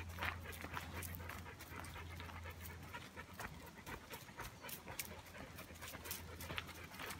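A dog panting, with footsteps on a gravel path.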